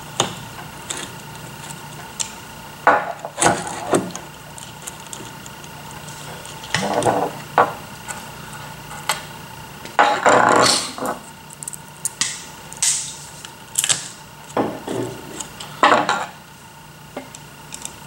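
Hand assembly on a wooden workbench: irregular clicks, clatters and short scrapes of a screwdriver, screws and small parts being handled while wheel gearmotors are fitted to a plastic robot base, over a steady faint hum.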